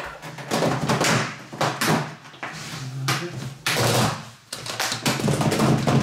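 Corrugated plastic exhaust hose of a portable air conditioner being handled and flexed: a series of rough scrapes and rustles with a few dull knocks.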